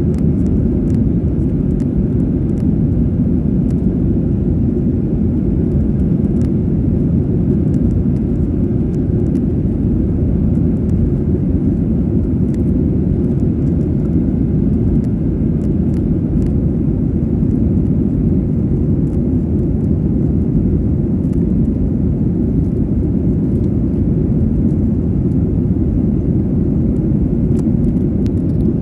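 Steady low rumble of an airliner in flight, heard inside the cabin: engine and airflow noise, unchanging throughout.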